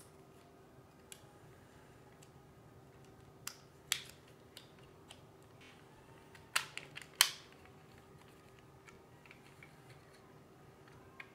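Scattered sharp clicks and taps, loudest about four seconds in and in a quick run of four about seven seconds in, over a faint steady hum.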